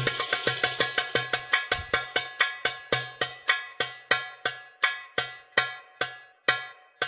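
Struck metal percussion, bell-like, in a recorded belly-dance drum solo. It plays a quick run of ringing strokes that slows down and fades, each stroke further apart than the last, ending with a single stroke near the end.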